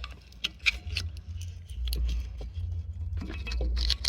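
Small metal engine parts clinking and knocking as they are handled, a scatter of short sharp strikes over a steady low rumble.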